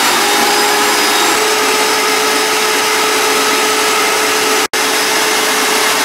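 Small shop vac running steadily with a steady whine, drawing air out of a rotomolded catamaran hull through a hatch stuffed with a towel. The motor has just spun up, its whine climbing slightly at the start before levelling off; the sound drops out for an instant past the middle.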